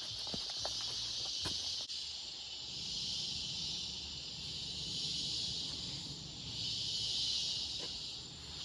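Insect chorus: a steady high buzzing that swells and fades in slow waves, with a few light clicks in the first two seconds.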